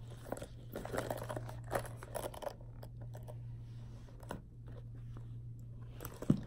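Handling noise of a woven fabric bag strap with gold metal hardware: rustling and light clicks, busiest in the first couple of seconds and sparser after.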